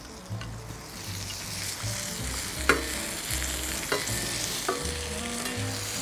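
Cauliflower steak sizzling as it fries in a pan, a steady hiss, with three sharp clicks as it is being handled and turned over.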